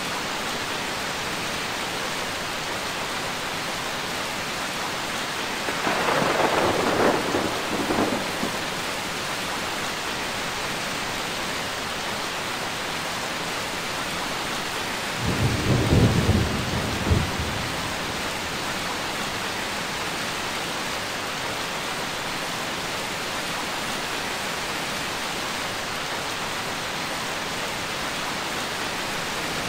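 Steady heavy rain with thunder rumbling twice, about six seconds in and again about fifteen seconds in.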